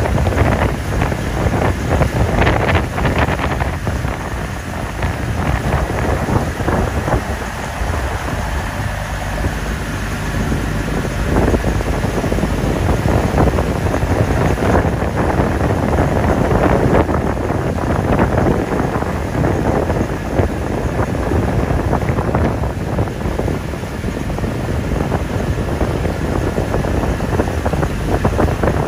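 Motor boat engine running steadily under way on open water, with wind buffeting the microphone.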